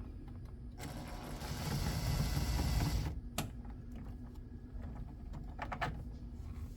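Electric drill running steadily for about two seconds as a door panel is drilled without the proper bit, followed by a few sharp clicks.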